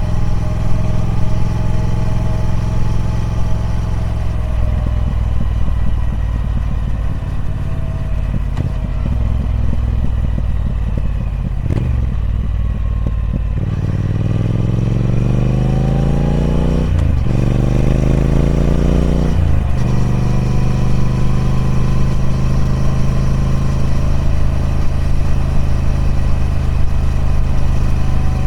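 Triumph Speed Twin 1200's 1200cc parallel-twin engine through its stock exhaust, ridden on the road: it runs steadily at low revs, then accelerates with rising revs broken by two quick upshifts about halfway through, and settles into steady cruising.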